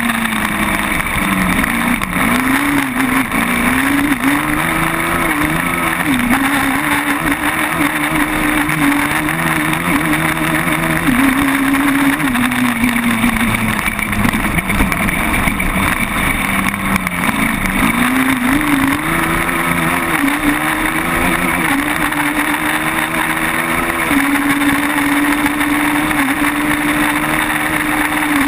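Sport quad bike (ATV) engine running under throttle on a dirt trail, its note rising and falling over and over as the rider accelerates and eases off, with steady engine and wind noise close on the mic.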